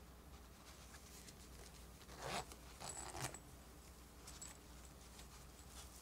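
Small metal zipper on a plush toy's fabric pouch being pulled open in two short rasps, the first a little after two seconds in and the second about three seconds in.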